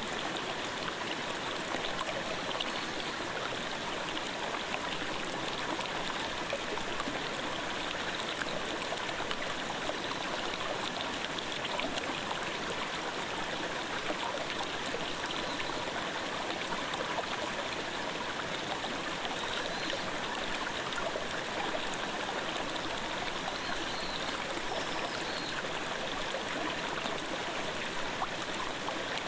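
Clear gorge stream babbling: a steady, even rush of flowing water with no change throughout.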